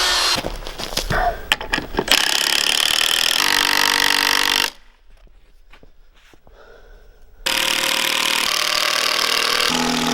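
Construction tool noise in cut-together clips: loud steady power-tool noise, a stretch of sharp knocks and taps, and a quiet gap with a few clicks in the middle.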